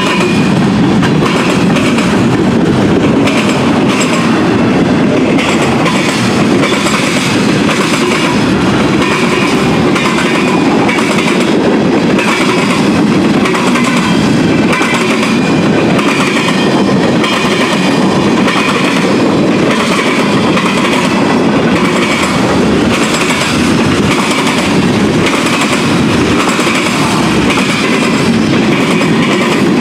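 Steel wheels of a mixed freight train's cars (tank cars, covered hoppers, gondolas, flatcars) rolling past close by: a loud, steady rumble with wheel clatter over the rail.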